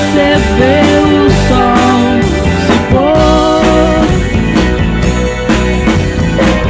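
Psychedelic rock band recording: drums keep a steady beat under a melody that glides up and down in pitch.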